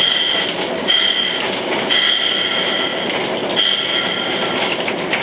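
Diesel locomotive air horn sounded from inside the cab in four blasts, the third the longest, over the steady rumble of the engine and wheels.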